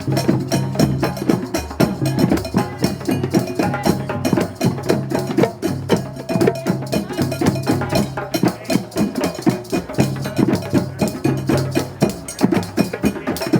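Drum circle: many hand drums playing a dense, driving rhythm together, with a cowbell knocking on top. A low held tone runs underneath and drops out now and then.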